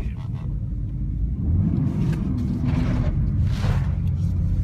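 BMW M3's engine heard from inside the cabin, running under throttle as the car slides on a wet skid pan, its pitch rising about two seconds in. Two short hissing rushes come about three seconds in.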